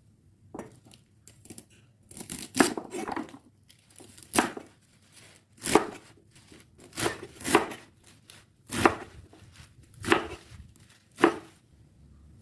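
Knife cutting food on a cutting board: about ten separate cuts at an uneven, unhurried pace, each a short sharp stroke.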